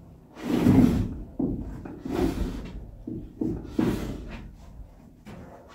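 Wooden I-joist being shoved into position, scraping and knocking against the framing. The loudest shove comes about half a second in, followed by several weaker scrapes and a few sharp knocks.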